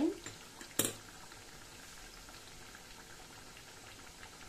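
Pestiños frying in hot oil in a pan on low heat: a faint, steady bubbling hiss. A single sharp clink about a second in.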